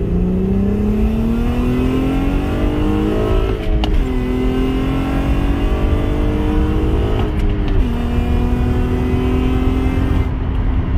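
Acura TL's V6, with pre-cat deletes, J-pipe and aftermarket muffler, accelerating through the gears. The revs climb, fall away at an upshift about three and a half seconds in, climb again more gently, fall at a second upshift about seven and a half seconds in, then hold steady.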